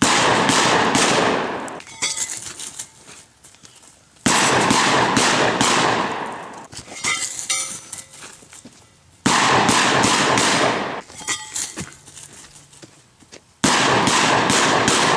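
Four 12-gauge shotgun blasts from a Benelli Super 90 semi-automatic, spaced about four to five seconds apart. Each sharp blast is followed by a long echo that dies away over about two seconds. A faint ringing tone comes between the second and third shots.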